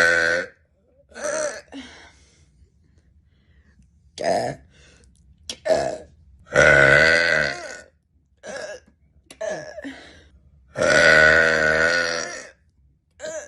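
A woman burping repeatedly: several short burps and two long, drawn-out, wavering ones of well over a second each, about a third of the way in and again near the end.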